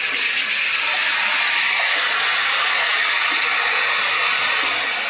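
Venturi injector mixing chemicals into a barrel of water, with a steady hiss of rushing water.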